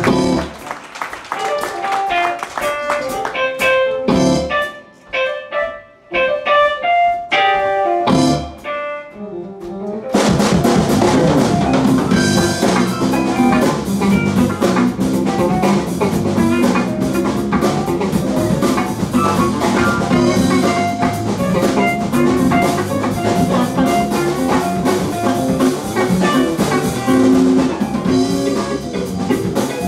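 Live funk-jazz band of horns, electric guitar, keyboard, bass and drum kit playing. For about the first ten seconds the playing is sparse and stop-start, with separate notes and short gaps; then the full band comes in together and plays a dense, steady groove.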